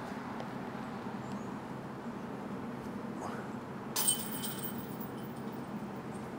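A disc golf putt striking the chains of a chain basket about four seconds in: a sudden metallic clank, then the chains jingle and ring on for a couple of seconds.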